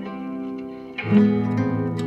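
Background music on a plucked guitar, growing louder and fuller about a second in.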